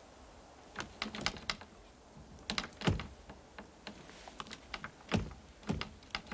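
Footsteps crunching in snow: irregular crisp crunches with a few heavier thuds, as someone walks up to the gazebo.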